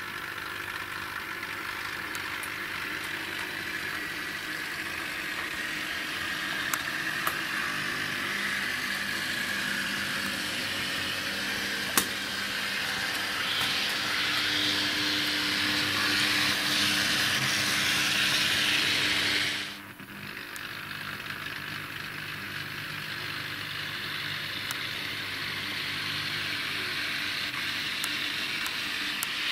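H0-scale model trams running on a layout's track: small electric motors whirring and metal wheels rolling on the rails, with an odd click as a wheel passes a rail joint or point. The sound drops away suddenly about two-thirds of the way through, then builds up again.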